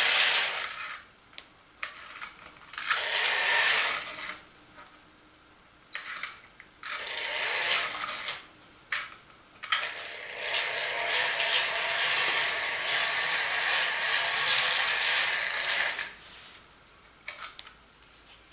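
Tri-ang Princess Elizabeth toy locomotive pulling two carriages round its track, motor and wheels running with a mechanical rattle in four stop-start spells, the last and longest about six seconds, with near-quiet gaps between. The owner puts the uneven running down to dirty track and a slightly bad connection.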